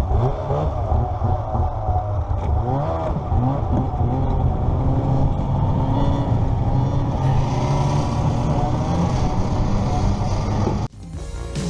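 Vintage two-stroke snowmobile engine running and revving up and down under load while towing a second, broken-down snowmobile. Near the end the engine sound cuts off suddenly and music begins.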